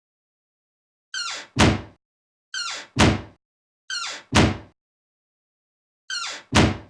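A door opening and shutting, repeated four times with silent gaps: each time a short squeak falling in pitch, then a loud, solid thunk as the door closes.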